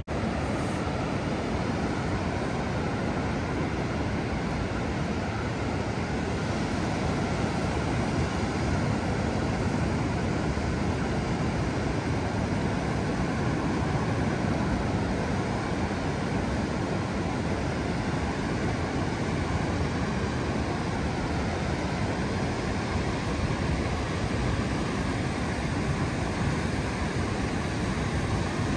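Ocean surf breaking along a flat sandy beach: a steady, unbroken rush of waves.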